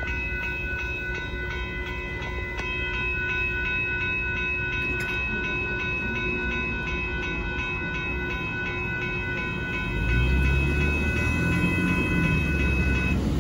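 Railroad crossing bell ringing with rapid repeated strikes over a low rumble from the receding train, still sounding while the gate arms rise after the train has passed, then cutting off near the end. A road vehicle's engine comes in about ten seconds in as traffic starts across.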